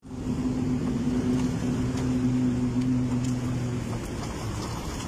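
A motor vehicle engine running with a steady low hum for about four seconds, over a constant rushing background of traffic noise; the hum stops near the end.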